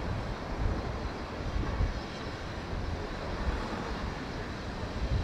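A train running, heard as a steady, noisy rumble with no distinct beats.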